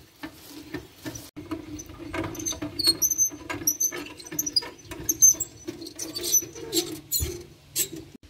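A travel trailer's scissor stabilizer jack being wound up with a hand crank, the metal screw and pivots squeaking and clicking with each turn.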